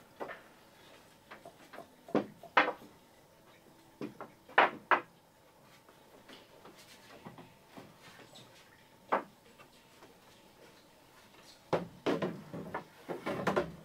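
Wood knocking on wood during hand carpentry: single sharp knocks and pairs of knocks at uneven intervals, then a busier run of clunks near the end.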